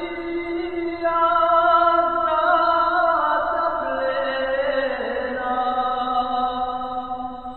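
Slow sung chant: long held vocal notes that shift pitch every second or so, fading away near the end.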